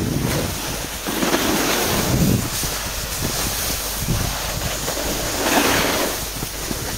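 Wind rushing over the microphone, with the scrape of snowboard and ski edges sliding over packed snow swelling in hissy waves every few seconds.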